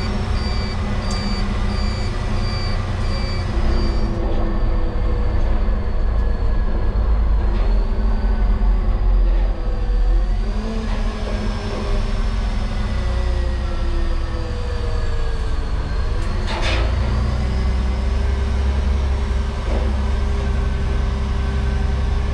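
LGMG CMT96 off-highway dump truck's engine running under way, its pitch slowly rising and falling with a heavy low rumble. A high repeated beeping sounds in the first few seconds, and a short hiss comes about three-quarters of the way in.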